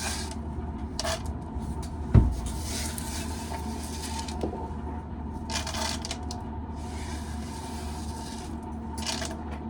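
Scraping and rubbing handling noises in short bursts, with one loud knock about two seconds in, over a steady low hum.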